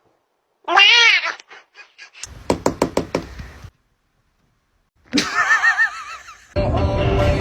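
A domestic cat gives one loud meow that rises and falls, followed by a quick run of about eight knocks, then a second cat call with a wobbling pitch. Music starts near the end.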